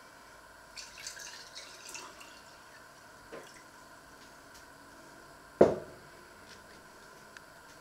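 Liquid poured from a plastic jug into a drinking glass, a splashing trickle of about a second and a half. About five and a half seconds in, the filled glass is set down on the wooden worktop with a sharp knock, the loudest sound.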